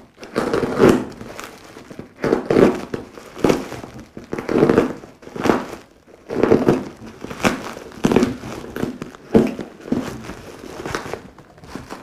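Thick double-layer bubble wrap crinkling as it is handled and cut open with a utility knife, in a dozen or so rustling bursts about one a second.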